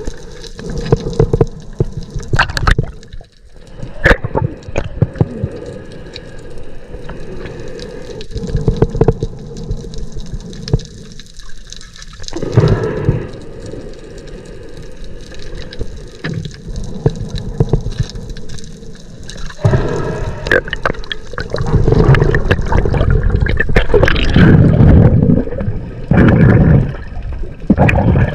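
Underwater sound through an action camera's housing: water rushing and gurgling around it as the diver swims, with scattered sharp clicks. The rushing grows louder and denser over the last several seconds.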